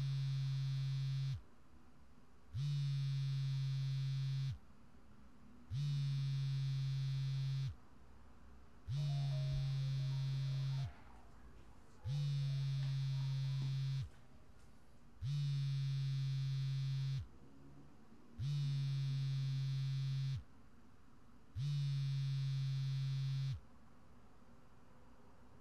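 Smartphone vibrating with an incoming call: eight buzzes of about two seconds each, one every three seconds or so, stopping a couple of seconds before the end.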